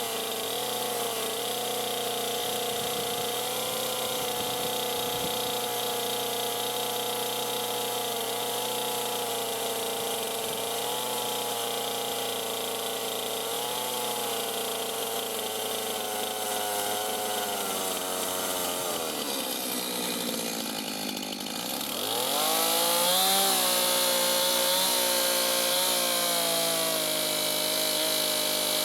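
Chainsaw running at a steady, held speed while cutting into a log to the scribe line. About two-thirds of the way through, the engine drops back, then revs up again and runs louder.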